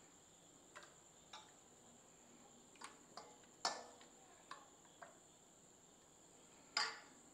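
About eight light clicks and knocks of a utensil against a bowl as chicken batter is stirred, the loudest near the middle and near the end, over a steady high-pitched insect trill.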